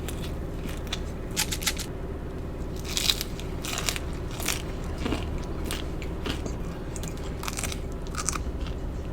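Close-miked eating of chicken lettuce boats: irregular crisp crunches of lettuce being bitten and chewed, over a steady low hum.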